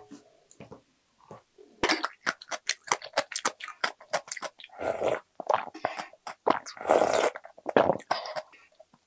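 Close-miked eating sounds: a run of crisp, crunchy chews of cucumber kimchi, then wetter slurps of pepper ramen broth and rice taken from a wooden spoon.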